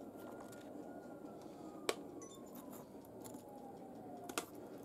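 Quiet scraping and clinking of a metal spoon against an aluminum sheet pan as a hard-baked salt crust is broken away from whole crappie, with two sharp clicks, one about two seconds in and one near the end.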